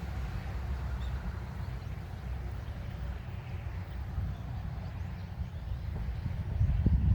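A JR 383 series electric limited express train fading away after passing, with a low rumble underneath that surges louder near the end.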